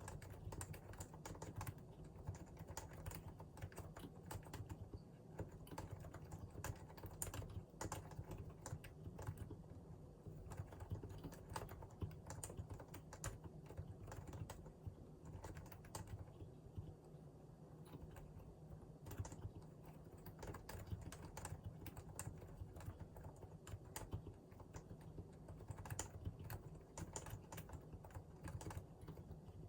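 Steady typing on a Realforce R2 PFU Limited Edition keyboard with Topre electrostatic capacitive switches: a continuous run of quick, irregular keystrokes, several a second.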